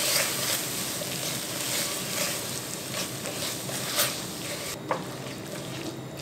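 Silicone spatula stirring shredded dried squid through bubbling gochujang sauce in a pan: a steady sizzle over low heat with repeated soft scraping strokes. There are two sharper knocks, about four and five seconds in, after which the sizzle thins out.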